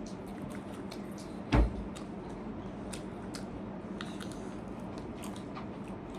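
Quiet eating sounds of people chewing instant noodles, soft squishing with scattered small clicks, and one dull thump about a second and a half in.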